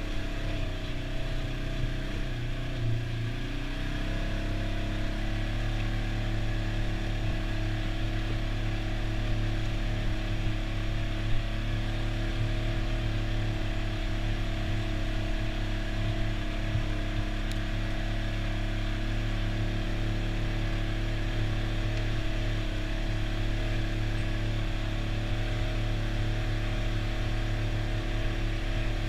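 Side-by-side UTV's engine running steadily at trail speed, heard from the driver's seat, with a brief dip and rise in revs about three seconds in.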